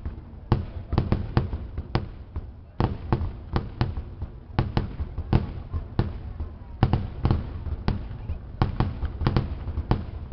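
Fireworks display: a rapid, irregular string of sharp bangs from shells bursting, about three a second.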